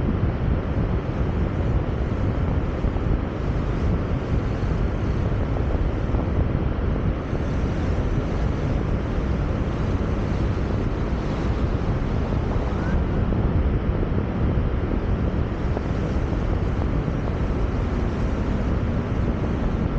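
Steady rumble of wind and road noise on the microphone of a camera riding on a moving car.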